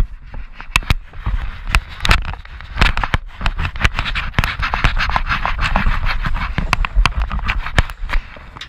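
Close rubbing and scraping on a body-worn camera as a bare arm brushes against it: a dense, irregular crackle of sharp clicks over a scratchy hiss, loudest in the middle and dying down near the end.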